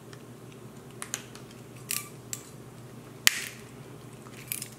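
Klein Tools pass-through RJ45 crimp tool clicking and snapping several times as its jaws close on a Cat 6 connector to shear off the wire ends, with one sharp, loud snap a little past the middle. The trim is not working out too well.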